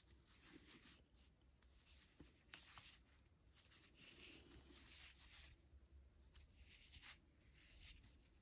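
Faint, intermittent rustling and scraping of a crochet hook drawing 100% cotton yarn through stitches, with a few soft ticks.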